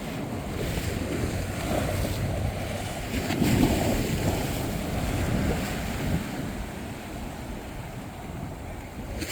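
Sea waves breaking and washing on a beach at high tide, with strong wind buffeting the microphone. The surf swells louder a few seconds in, then eases.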